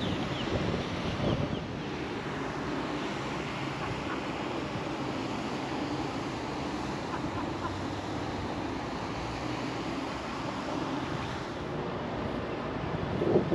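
Outdoor wind rushing steadily across the microphone with a low rumble, and a louder buffet near the end.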